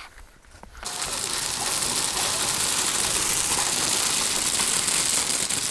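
Crushed limestone gravel sliding off a tipped dump-trailer bed and pouring into a ditch: a steady rattling rush of stones that starts about a second in.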